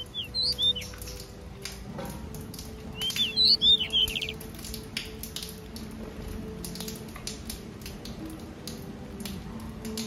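Small finches chirping in two short bursts: one about half a second in, and a louder run of rapid chirps from about three to four seconds in. Light clicks of birds pecking seed in a wooden tray run underneath.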